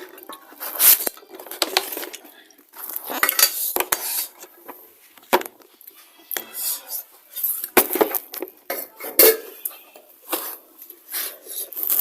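Spoons clinking and scraping against plates in irregular short strokes while chicken and rice are being eaten.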